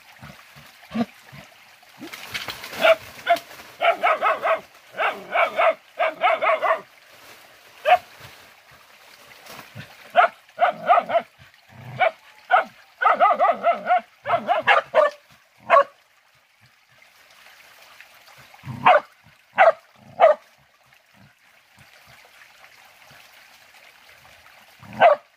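Hunting dogs barking and yelping in flurries at a cornered wild pig, with pauses between, a few single barks around two-thirds of the way through, and one more near the end.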